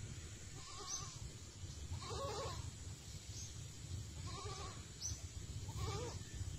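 An animal calling four times, short wavering calls about every one and a half seconds, over a steady low rumble.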